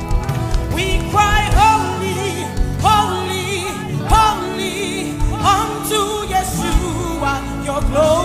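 Gospel worship music: a singer's voice slides upward through long wordless runs with vibrato over held chords and drum hits.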